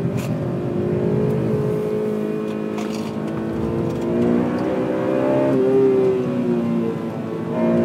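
Honda Civic Type R FN2's 2.0-litre four-cylinder VTEC engine under hard driving, its revs climbing and falling as the car is driven around the track.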